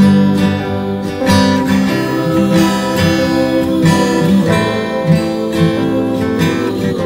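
Acoustic guitar strummed and plucked, playing an instrumental passage of a song with no voice.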